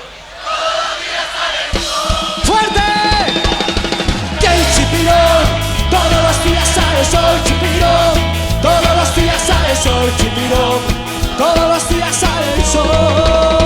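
Salsa band playing. Percussion comes in about two seconds in, then a bass line and the full band with melodic lines from about four and a half seconds.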